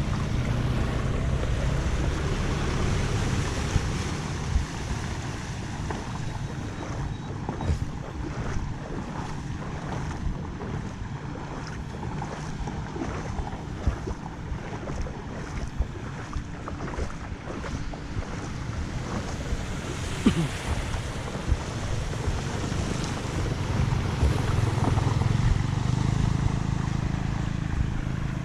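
Steady rush of flood water, with wind buffeting the microphone and a few scattered knocks.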